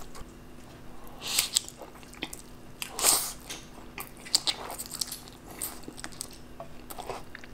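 Close-miked wet eating sounds of a person eating saucy spicy jjajangmyeon (black bean noodles): irregular chewing, lip smacks and noodle slurps, the loudest slurp about three seconds in.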